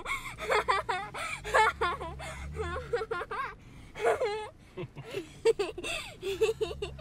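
Passengers' wordless, wavering cries and laughter as an SUV bounces over sand dunes, with the engine's low rise and fall underneath.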